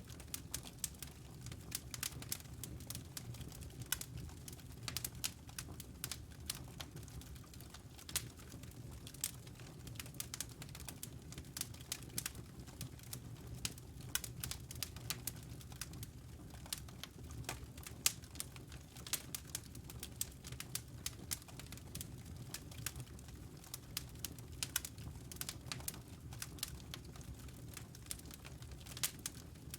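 Wood fire crackling in a fireplace: frequent, irregular sharp pops and snaps over a steady low rumble, with one louder pop about eighteen seconds in.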